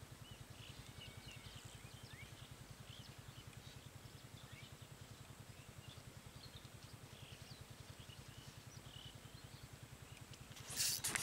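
Faint bird chirps over a steady, low, rhythmic thudding; just before the end a sudden loud rush of noise cuts in.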